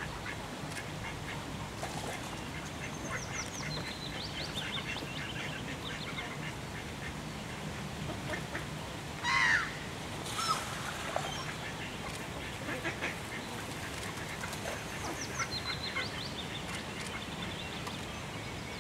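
Birds calling: a loud harsh call about halfway through stands out above the rest. A small bird's descending chirpy phrase is heard twice, and soft scattered chirps sit over a low steady hum.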